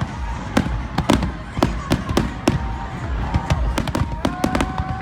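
Fireworks display: a fast, uneven string of sharp bangs and crackling reports, several a second. Music with held notes plays underneath.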